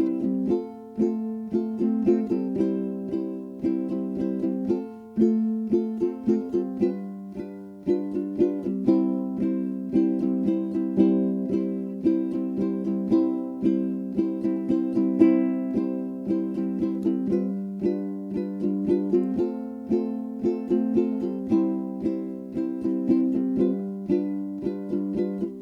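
Background music: plucked strings playing chords in a quick, even rhythm.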